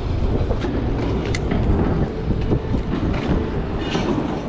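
A spinning reel being cranked to retrieve a lure, under a steady low rumble, with a few light clicks.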